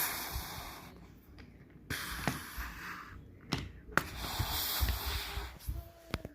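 Breathy hissing and whooshing noises made with the mouth as crash sound effects, in three bursts, broken by a few sharp clicks or knocks.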